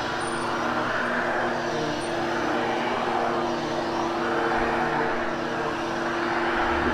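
Hoover HushTone upright vacuum cleaner running steadily while it is worked over carpet, a constant motor hum under a wide rushing noise.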